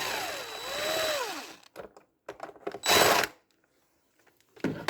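Milwaukee cordless power tool spinning a 10 mm fastener loose for under two seconds, its motor pitch dropping, rising and falling again under the trigger. A few small clicks follow, then a short noisy burst about three seconds in.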